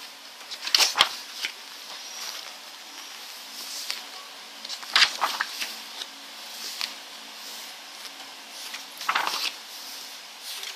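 Pages of a large photobook being turned and smoothed flat by hand: short paper rustles about a second in, around five seconds and again near nine seconds, over a faint steady hum.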